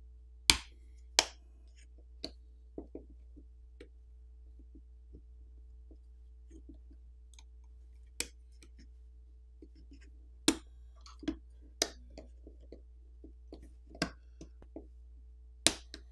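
Metal pry tool clicking and snapping as it works the camera lens cover assembly of a Samsung Galaxy A24 loose from the phone's back housing: scattered sharp clicks, a few loud ones about half a second and a second in and a cluster in the last six seconds, with fainter ticks between, over a faint steady low hum.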